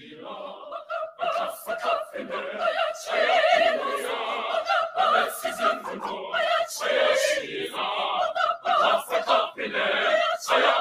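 Mixed school choir of boys and girls singing together, swelling from soft to full voice over the first few seconds.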